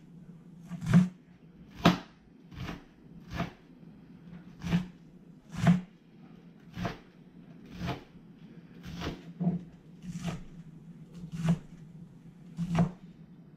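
Chef's knife chopping napa cabbage on a cutting board, about one chop a second at a slow, steady pace.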